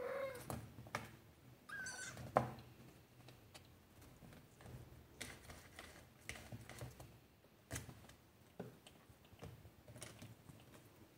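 British Shorthair kittens scrabbling and climbing, their claws clicking and scratching on plastic playpen mesh and fabric in faint, irregular ticks. There are two short kitten mews near the start, the second higher and about two seconds in.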